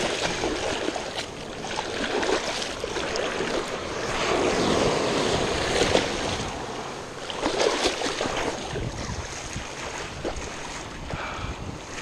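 Shallow seawater splashing and churning around a wader's legs as a hooked shark thrashes in the surf, loudest around the middle, over the wash of small breaking waves and some wind on the microphone.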